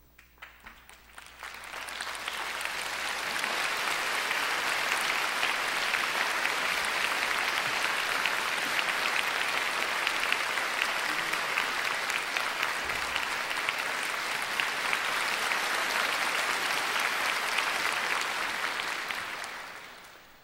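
Concert audience applauding as the conductor walks onto the stage. A few scattered claps swell into full, steady applause within about two seconds, which holds and then dies away near the end.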